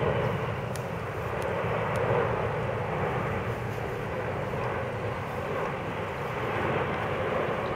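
Airbus A350's twin Rolls-Royce Trent XWB turbofan engines heard in flight as it passes overhead: a steady, even rushing jet noise.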